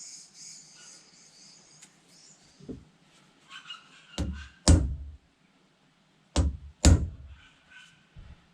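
Heavy knocks in two pairs, each pair two blows about half a second apart, about four and six and a half seconds in: the new hardwood handle being driven into the head of a block-splitting maul. Birds chirp faintly in the first two seconds.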